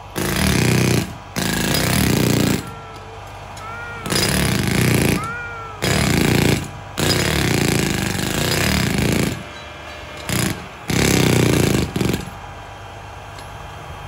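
Handheld jackhammer hammering into the ground in repeated bursts of one to two seconds, with short pauses between them.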